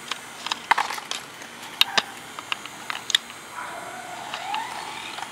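Plastic toy race car being handled and set down on a concrete sidewalk: irregular sharp clicks and taps, the loudest a little under two seconds in and again about three seconds in.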